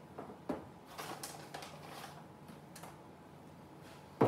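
A small plastic parts bag crinkling as it is handled and emptied, with scattered light clicks of small parts, and one sharp knock near the end as something is set down on the table.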